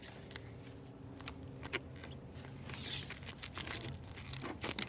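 Serrated fillet knife sawing through a grouper's collar at the throat: a faint, irregular crackle of small crunching and tearing snaps as the blade cuts through bone and skin.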